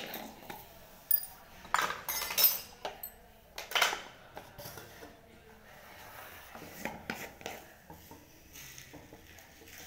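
Metal kitchen utensils and pots clinking and clattering while tea is made, a handful of sharp clinks in the first few seconds, then quieter handling noise.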